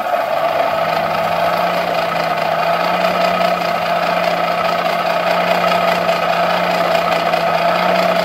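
Small Buffalo Forge hand-crank forge blower, freshly restored, being cranked steadily so its fan spins with an even whirring hum. It drops away right at the end as the cranking stops.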